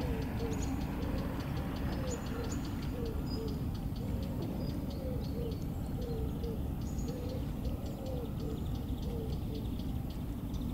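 A dove cooing over and over in short phrases of soft, rounded notes, over a steady low rumble. Faint high chirps of small birds sound above it.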